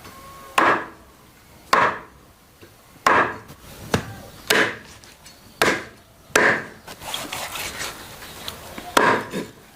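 A blade chopping into wood with about eight sharp blows, roughly one a second, and some scraping and rustling between the blows late on.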